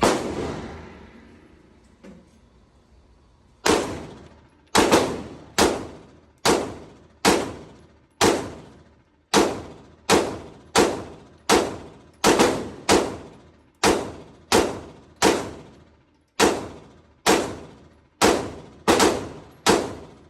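9mm pistol fired in slow, steady strings: one shot at the start, then after a short pause about twenty more at roughly one a second, with a few quick doubles. Each shot is a sharp crack with a short echoing tail.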